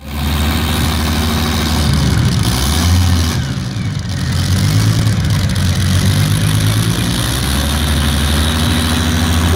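Rolls-Royce Griffon V12 aero engine of a pulling tractor running at idle. Its revs rise briefly about two to three seconds in, dip, then settle into a steady idle.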